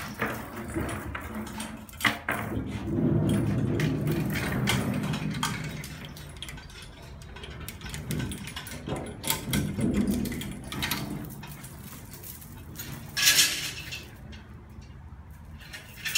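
Scattered light knocks and clicks over a low, muffled rumble, with a short rustling scrape about thirteen seconds in.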